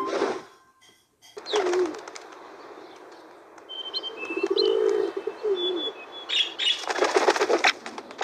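Bird sound effects: low cooing warbles and a few thin high chirps, then a burst of fluttering wingbeats in the last second and a half. Music from the previous ident fades out in the first half second, and a sharp hit comes at the very end.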